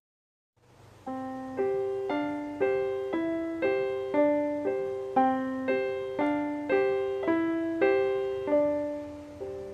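Background music: a keyboard playing a gentle repeating pattern of single notes, about two a second, coming in about a second in after a moment of silence and fading near the end.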